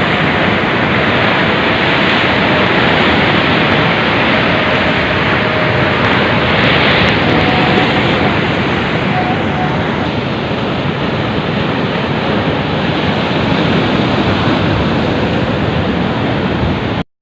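Steady, loud rushing of surf and wind on the microphone, cutting off suddenly at the very end.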